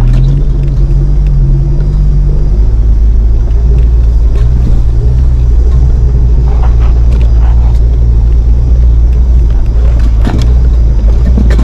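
Jeep driving on a rough dirt trail: a steady low rumble of engine and tires, with a few knocks from bumps midway and near the end.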